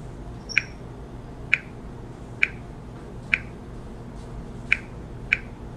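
Six short, sharp key-press clicks, spaced roughly a second apart with a slightly quicker pair near the end, as the six digits of a PIN are tapped on a Smartmatic vote-counting machine's touchscreen keypad.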